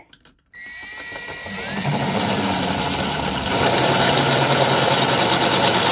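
Cordless drill with a half-inch bit boring through an aluminium spark plug non-fouler clamped in a vise. The drill starts about half a second in, spins up, and runs steadily, getting louder about halfway through as the bit cuts.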